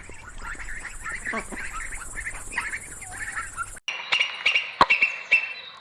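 Birds calling in a quick run of short, overlapping chirps. About four seconds in, the sound cuts abruptly to another recording with several sharp clicks and a high call.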